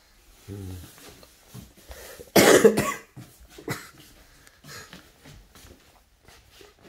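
A person coughs hard, a quick double cough about two and a half seconds in, with light knocks and steps on a wooden floor around it.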